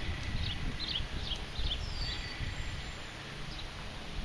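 Birds chirping outdoors: a quick run of short, falling chirps, then a single down-slurred whistle about two seconds in, over a constant low rumble on the microphone.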